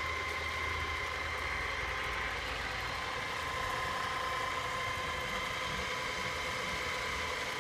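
Feeler 480-volt drill press running: a steady motor hum with a constant high whine on top.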